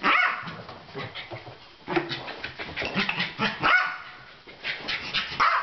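A small dog barks at the very start and gives a shorter yap about three and a half seconds in, between a scatter of short clicks and knocks.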